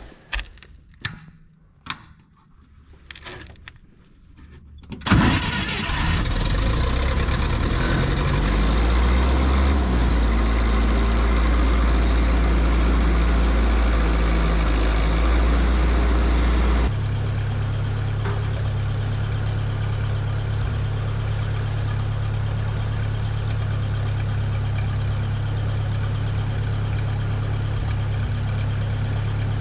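Miller Big 40 engine-driven welder cold-starting: a few clicks and knocks, then the engine catches suddenly about five seconds in and runs steadily. About twelve seconds later its note changes abruptly to a slightly quieter, higher-pitched steady running.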